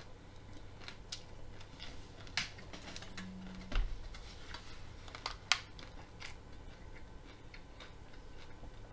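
Raw broccoli being chewed: irregular crisp crunches and clicks, hard enough to take a lot of effort. There is one low thump about four seconds in.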